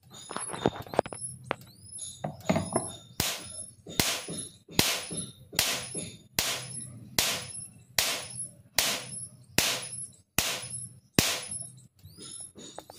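Electric fence energizer's high-voltage pulse arcing across a metal rod held to its output terminals: a sharp snapping spark at every pulse. The snaps come about every 0.8 seconds from about three seconds in, after a few irregular clicks as the rod is put in place.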